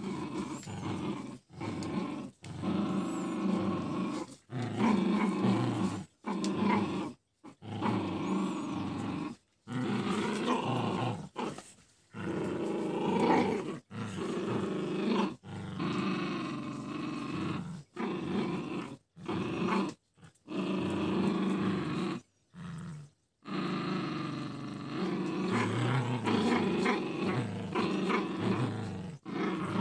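Toy and miniature poodles play-growling through a tug-of-war over a rope toy. The growls come in long stretches of one to three seconds, broken by short pauses.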